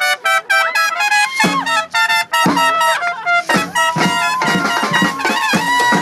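Street brass band playing a tune: horns play short, choppy repeated notes, then lower notes and drum hits come in about a second and a half in, with long held horn notes toward the end.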